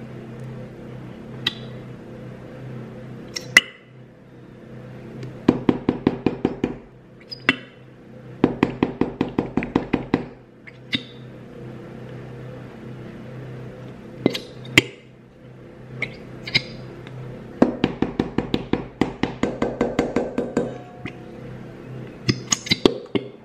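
A utensil clinking rapidly against a hard bowl or cup during slime-making, in three runs of about ten quick strikes a second with single clinks between them. Soft background music runs underneath.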